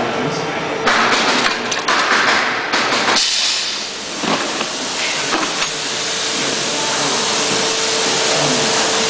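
Vacuum forming machine running with a formed plastic sheet held on the mould: a loud, steady rush of air over a steady hum. Irregular hissing comes in the first few seconds, then about three seconds in the sound changes to a brighter, even hiss.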